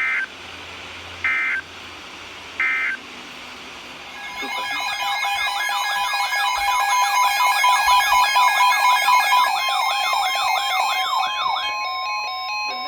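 Three short bursts of EAS digital data tones about a second apart, the end-of-message code closing an alert. Then, about four seconds in, an electronic siren-like alert tone starts, warbling up and down two to three times a second with steady beeping tones layered over it. It settles into a single held tone near the end.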